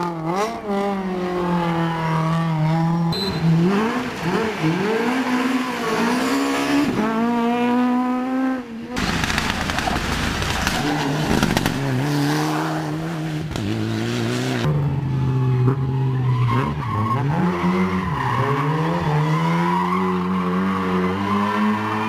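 Rally cars driven hard on a tarmac stage: engines revving up and falling back between gear changes as the cars slide, with tyre squeal. The clips are cut together. About nine seconds in there is an abrupt switch to a harsher, noisier passage lasting several seconds, and then revving engines again.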